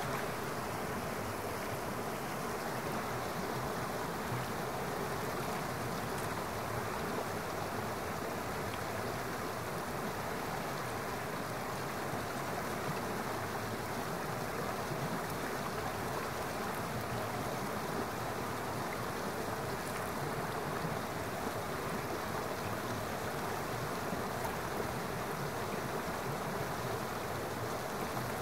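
Waterfall and cascading creek water rushing steadily, an even, unbroken rush of water.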